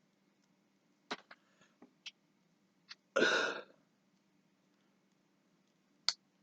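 Hard plastic action figures clicking as they are handled, with a few sharp clicks scattered through. About three seconds in comes a louder, breathy half-second burst.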